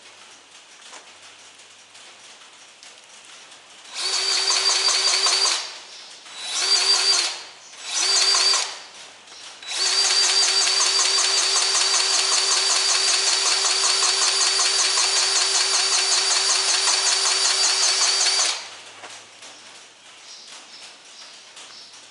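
Battery-powered grease gun running, pumping grease into a fitting: a fast-pulsing motor whine in three short bursts, then one steady run of about nine seconds.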